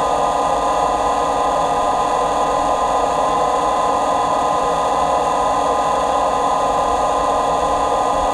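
Custom FPV quadcopter's four 2650 kV brushless motors armed and spinning at idle while the craft sits on the ground: a loud, steady, even whine that holds one pitch, picked up up close by the GoPro mounted on the quad.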